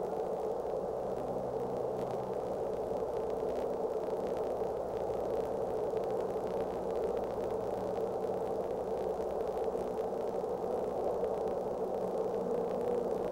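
Steady static-like noise, unchanging in level, with a faint low hum beneath it.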